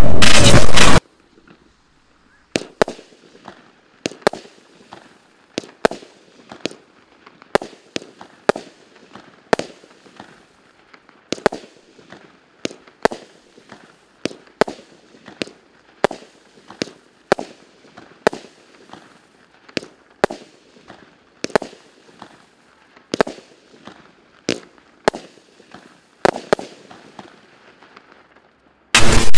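Watt Imaginator 19-shot fireworks barrage cake firing: a steady string of sharp bangs, one to two a second for about 26 seconds, each trailing off briefly. Loud music cuts off about a second in and starts again right at the end.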